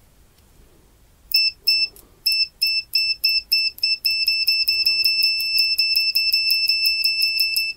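Continuity beeper of an Owon CM2100B clamp meter sounding as the test-lead tips are tapped together. It gives short, high beeps that come closer and closer together, then a steady unbroken tone while the leads are held in contact, which cuts off suddenly near the end. The beep means the meter reads under 50 ohms between the probes, and it responds very fast.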